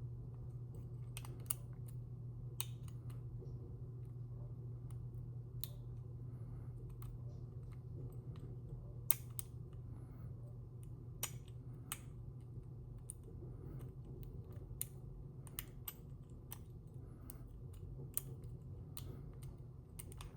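Light irregular clicks and ticks of a lock pick and turner working the pins of a Master Lock 410 padlock while it is being picked, over a steady low hum.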